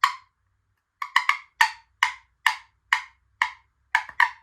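Turkey box call worked in short sharp pops to make a cut, imitating a wild turkey's cutting: one pop, a pause, then a run of about a dozen clipped squawking clucks, roughly two a second, some in quick pairs.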